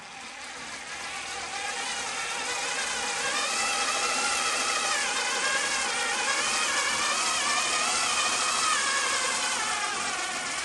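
Makita 3.6 V pencil screwdriver's motor running under heavy load while driving a 150 mm coach screw into wood: a whine that wavers up and down in pitch as the load changes. It grows louder over the first few seconds, then holds.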